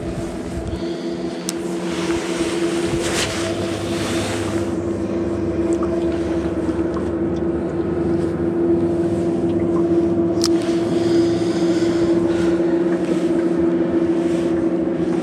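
Boat motor running steadily at low speed, a constant even hum that grows slightly louder over the stretch, with a couple of sharp clicks.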